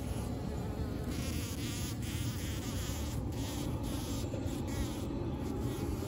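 Bumblebees buzzing at partridge pea flowers, a steady drone that swells and fades in several bursts. This is the buzzing of bees buzz-pollinating the blossoms, shaking the pollen loose.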